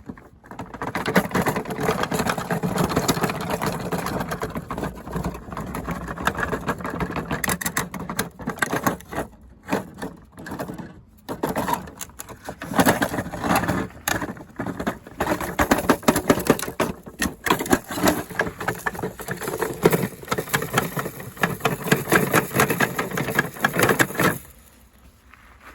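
Washing machine being run to destruction, its motor and drum going hard with loud, rapid clattering and banging. It starts about a second in, dips briefly a few times, and cuts off near the end.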